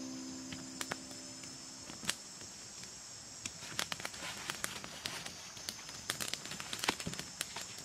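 Small wood campfire crackling, with dry leaves and sticks rustling and clicking as the ribs are laid over it; the clicks come thickest in the second half. A steady high insect drone runs underneath, and a music line fades out in the first two seconds.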